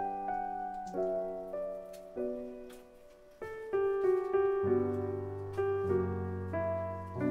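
Solo piano background music, slow and gentle. It fades briefly near the middle, then comes back fuller, with deep bass notes joining in the second half.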